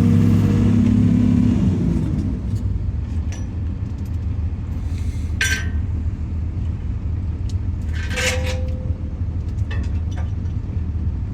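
Heavy equipment engine running steadily. It is at higher revs for the first two seconds, then eases to a lower steady rumble. Two short metallic clinks come around the middle.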